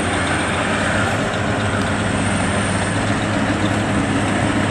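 Engine of a WD102 Pro rice combine harvester running with a steady, unchanging drone.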